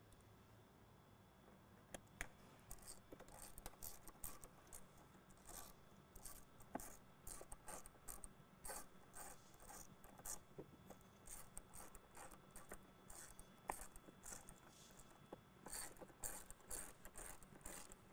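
Faint clicking of a hand ratchet with a T40 Torx bit, in short runs of ticks as it drives a screw home.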